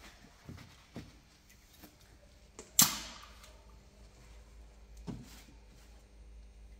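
A few light handling clicks, then one sharp knock about three seconds in and a smaller one about five seconds in: a drink can wrapped in a paper towel being set against a car door's side window glass.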